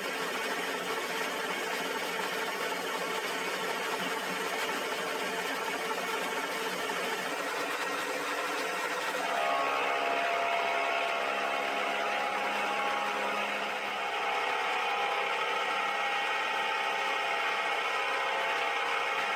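Archdale vertical milling machine running, its end mill taking a final skim cut across a cast-iron vise casting: a steady machine whine and hum. The mix of tones shifts about nine and a half seconds in.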